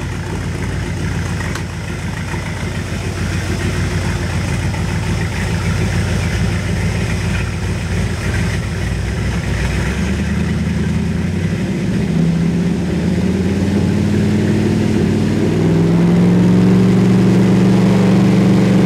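Carbureted Ford 427 big-block V8 running steadily, its speed raised in steps about halfway in and again near the end so the ignition advance can be checked with a timing light against a 37-degree mark.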